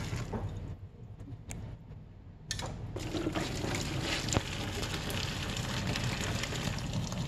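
Hot water from parboiling beef being poured out of a stainless steel saucepan into a stainless steel sink, starting suddenly about two and a half seconds in and running steadily, with one sharp click partway through. The water is the blanching water being drained off the beef.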